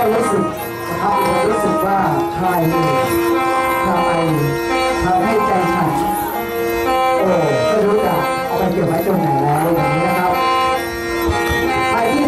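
Hmong qeej, a free-reed bamboo mouth organ, played without a break. Several pipes sound a sustained chord, while the lower notes bend and shift in pitch. The sound dips briefly a few times.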